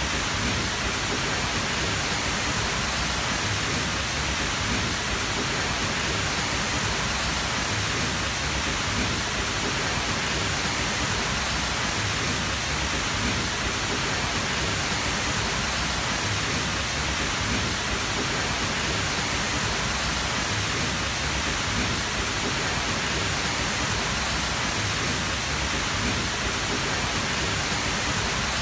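Tall waterfall: a steady, loud rush of falling water, even and unbroken.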